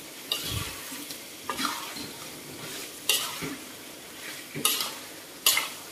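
A metal slotted spatula stirs and scrapes prawns in chili paste around a metal wok: about five sharp scrapes against the pan over a steady sizzle of frying.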